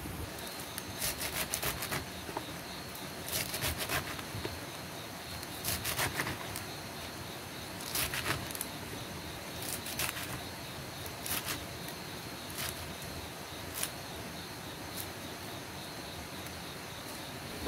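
Leafy greens being cut with a knife and handled in a plastic basin: short clusters of crisp crunching snips every second or two. A steady high insect drone runs underneath.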